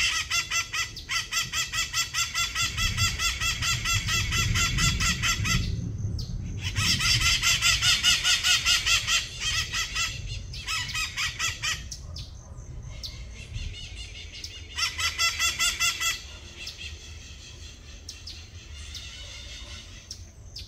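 A bird calling in long runs of rapid, evenly spaced harsh notes, several a second, with short breaks; the calls fall away after about 16 seconds.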